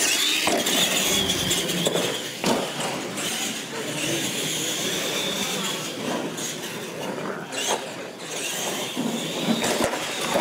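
Radio-controlled monster trucks racing, their motors and gears whining and rising and falling in pitch with the throttle, with tyres on concrete and a few sharp knocks from landings and bumps.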